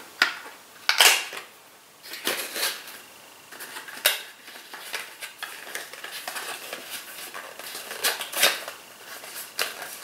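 Cardboard packaging of a konjac sponge being handled and opened by hand: intermittent rustling and crackling, loudest about a second in and again near the end.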